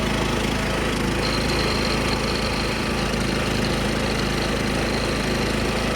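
Engine of a 1976 John Deere 300 lawn tractor running steadily as it is driven, with a thin high steady whine coming in about a second in.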